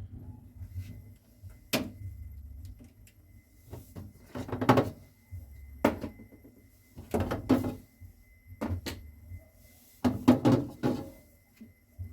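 Household handling sounds: doors or drawers opening and shutting and objects knocking and clattering, in short separate bursts about every second, over a faint low steady hum.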